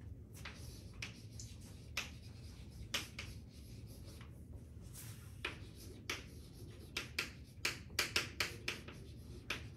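Chalk writing on a chalkboard: a run of short, sharp ticks and scratches as letters are formed, a few scattered at first and coming in quick succession in the second half.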